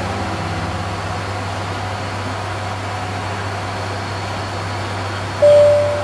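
Steady low drone of an ATR 72 turboprop's engines and propellers heard inside the cockpit in flight. A loud, clear electronic tone sounds about five seconds in.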